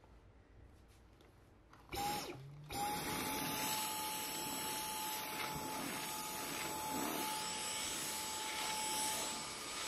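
Stick vacuum cleaner switching on about two seconds in, then running steadily with a constant motor whine.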